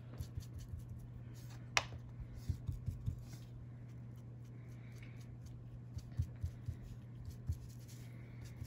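Soft taps and rubbing of a foam ink-blending tool dabbed and brushed onto paper, in small clusters, with one sharper click about two seconds in. A steady low hum sits underneath.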